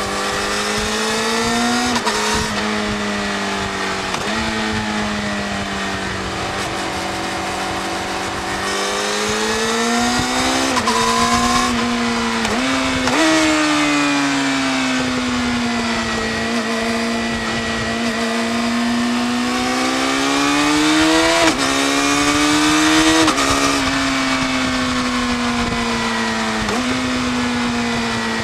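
Yamaha YZF-R6 inline-four running through its stock exhaust under way. The engine note climbs steadily through each gear and drops sharply at each shift, about half a dozen times, with some stretches where the revs sag and build again.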